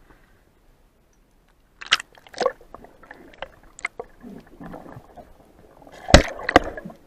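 Muffled underwater sound from an action camera held below the surface. After a second or two of near silence come scattered sharp clicks and knocks, the loudest pair about six seconds in, with faint gurgling between them.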